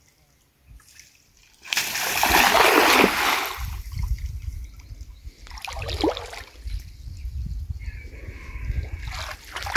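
Cast net slapping onto the pond surface about a second and a half in: a loud splash lasting over a second. Smaller splashes and sloshing follow while the net sinks and is worked in the water.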